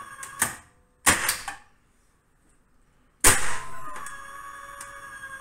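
Hyundai HGN16 air circuit breaker tripping through its undervoltage release: a light click, then a loud mechanical clack as the breaker opens. About two seconds later comes a second loud clack, after which a steady electrical hum sets in.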